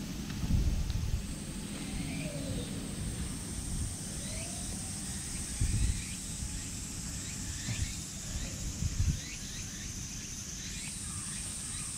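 Outdoor park ambience: a steady high-pitched drone that comes in about a second in and steps up near the end, with repeated short falling bird chirps. Irregular low thumps and rumble sound close to the microphone.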